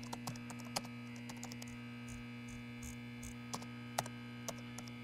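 Low, steady electrical hum with scattered soft clicks of a laptop being used, two sharper clicks about a second in and about four seconds in.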